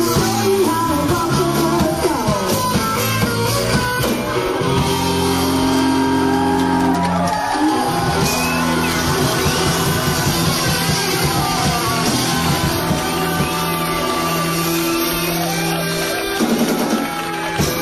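Live rock band playing: electric guitar chords with singing over them.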